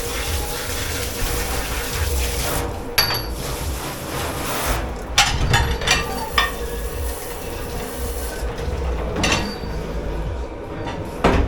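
Dishes and pans clattering and knocking against each other in bursts, a few times, over a steady rushing background with a constant hum.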